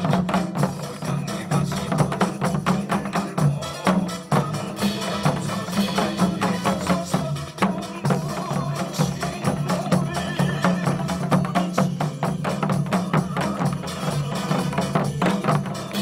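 Janggu, Korean hourglass drums, played by a group in quick, dense strokes along with recorded backing music.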